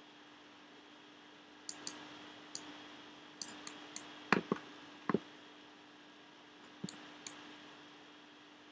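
Scattered clicks of a computer mouse and keyboard, about a dozen, with a few heavier ones around the middle, over a faint steady hum.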